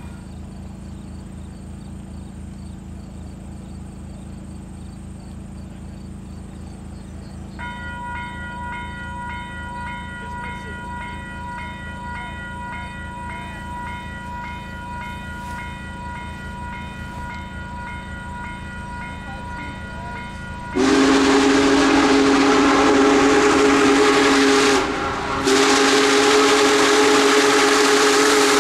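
Union Pacific Big Boy No. 4014's steam whistle blowing two long, loud blasts as the 4-8-8-4 approaches, beginning about three-quarters of the way in. There is a brief break between the blasts. Before the whistle there is only a low, steady rumble.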